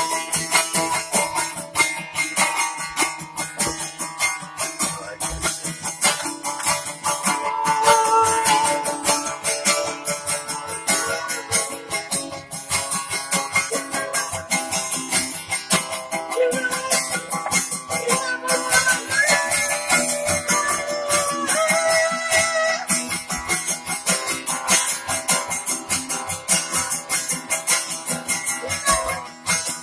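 Acoustic guitar being strummed in a steady rhythm, played as live music.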